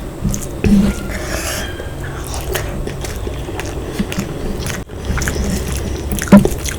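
Close-miked chewing and biting of mutton curry and rice: irregular wet mouth sounds and small clicks, with one sharper, louder click a little after six seconds in.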